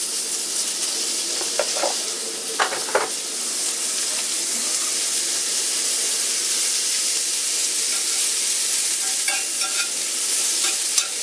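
Sliced mushrooms and garlic sizzling in butter in a small cast iron skillet, stirred with a spoon. A few utensil knocks on the pan come in the first few seconds.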